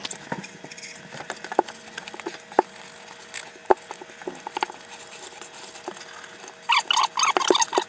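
Damp grout sponge wiping over freshly grouted glass mosaic tile, squeaking in a quick run of chirps near the end. Before that, scattered light clicks and taps.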